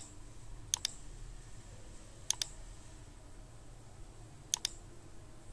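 Computer mouse clicking: three quick click pairs, about a second and a half apart, as files and drop-down menus are selected.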